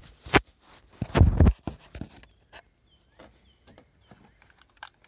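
A person moving and handling gear: a sharp click, a loud short scuff about a second in, then scattered light clicks and taps.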